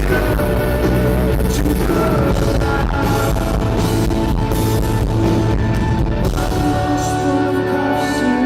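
Live rock band playing loudly, with drums and guitars; near the end the deep bass thins out while sustained chords ring on.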